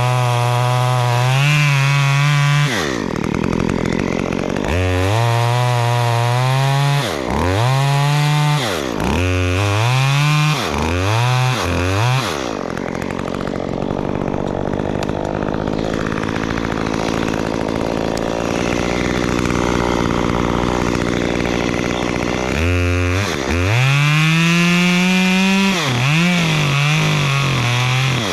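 Two-stroke chainsaw being throttled up and down: two long revs, then a run of quick blips, a lower, steadier stretch for about ten seconds, then another long rev and more short blips near the end.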